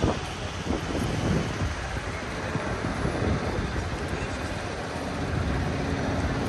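Busy city street ambience: steady traffic noise with a low, uneven rumble and some wind on the microphone.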